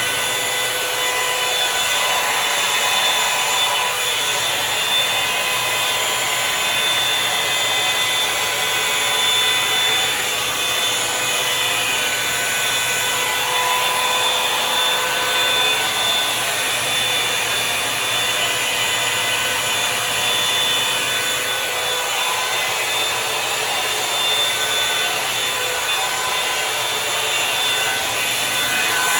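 Revlon One Step Volumizer hot-air brush dryer running steadily: a loud rush of air with a steady motor whine over it.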